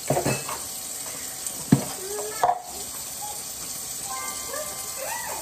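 Kitchen faucet running into the sink while plastic baby dishes are scrubbed with a sponge, with a few knocks and clatters, the sharpest about a second and a half in, and faint squeaks near the end.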